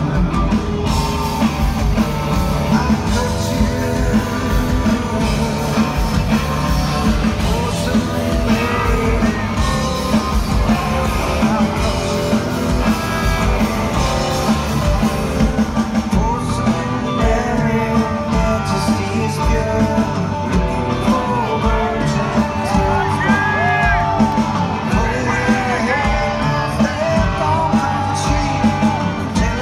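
A rock band playing live and loud with electric guitars, and a male lead singer singing over them, heard from the audience floor of a concert hall.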